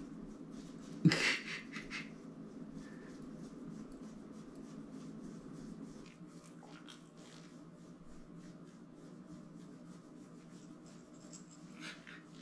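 A hand rubbing and scratching a Cardigan Welsh Corgi's fur, a quiet, intermittent scratchy rustle, with one sudden louder burst about a second in.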